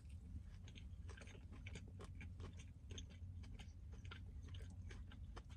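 Faint close-up chewing of a bite of chicken club sandwich on toasted sourdough: irregular small crunches and mouth clicks, over a low steady hum.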